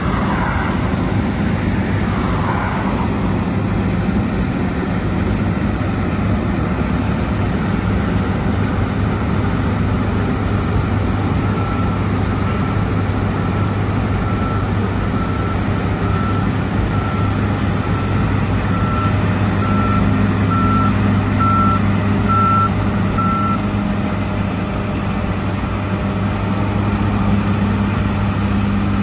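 Large diesel engine of harvest machinery running steadily at a constant note, with a high electronic warning beep sounding about once a second for roughly ten seconds midway through.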